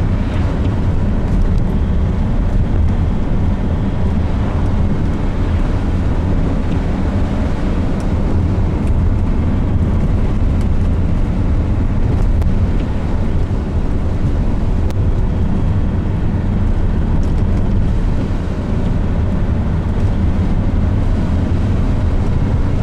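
Car driving steadily along a road: a continuous low rumble of engine and tyre noise.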